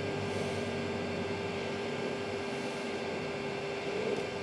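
Sovol SV01 3D printer's cooling fans running steadily at idle after power-on: an even whir with a steady mid-pitched tone and a low hum.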